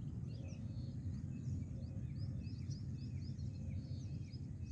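Small birds chirping in quick, repeated short notes over a steady low outdoor rumble.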